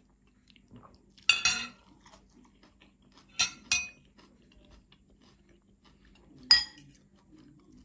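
Metal fork and spoon clinking in a white ceramic soup bowl: four sharp clinks, each with a short ring. The first comes about a second in, two follow close together around the middle, and the loudest comes near the end.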